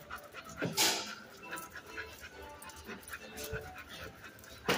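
A dog panting as she walks on a leash, with one brief louder noise about a second in.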